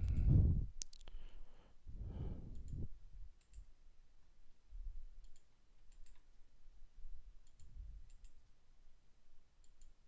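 Computer mouse clicking, a sharp click about a second in and then scattered faint clicks, while vertices are dragged in a 3D modeling program. Two short, low, muffled sounds come in the first three seconds.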